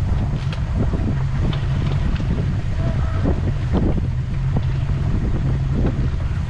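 Towboat engine running steadily under way with a boat in tow, with wind buffeting the microphone and irregular slaps of water against the hull.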